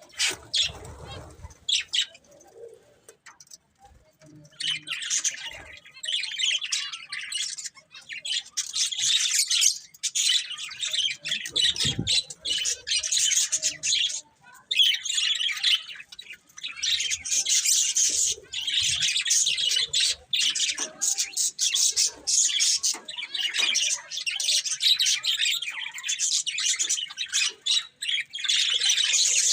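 Budgerigars chattering and warbling in rapid high chirps with the odd squawk, pausing for a couple of seconds near the start and briefly again about halfway through.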